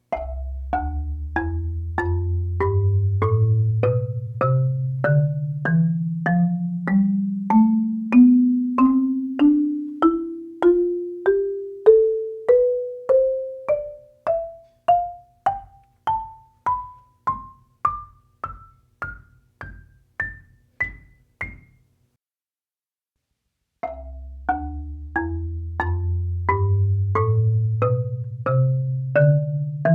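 Marimba played one note at a time in a steady scale from its lowest bars to its highest, about one and a half notes a second. The low notes ring on long, while the top notes die away quickly. After about two seconds of quiet the scale starts again from the bottom. The recording is raw and unprocessed, picked up by microphones close beneath the bars.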